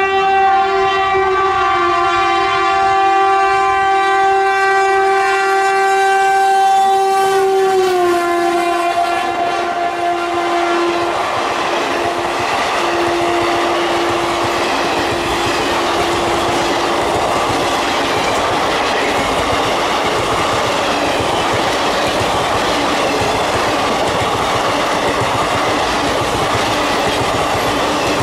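Indian Railways locomotive horn sounded in one long steady blast as the train comes through at speed; its pitch drops about eight seconds in as the locomotive passes, and the horn fades. After it comes the steady rush and clatter of the coaches' wheels over the rails.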